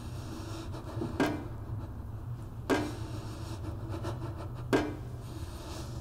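Three sharp knocks, about one and a half to two seconds apart, each with a short low ring, over a steady low hum.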